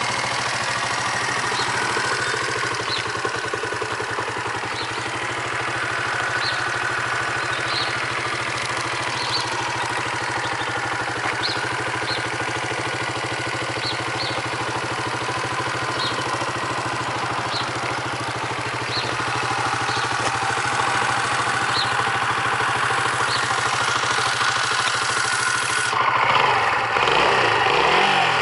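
Hyosung Cruise II 125's oil-cooled single-cylinder four-stroke engine idling steadily with an even beat. It gets louder and fuller near the end.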